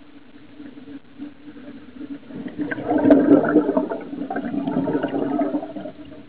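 Scuba regulator exhalation underwater: a gurgling rush of exhaust bubbles starts about two seconds in and swells twice over about three seconds. A steady low hum runs underneath.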